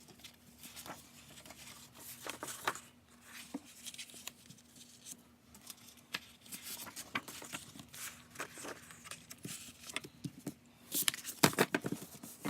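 Sheets of decorative paper being handled and flipped over, with light rustling and crinkling. It gets louder and busier about 11 seconds in.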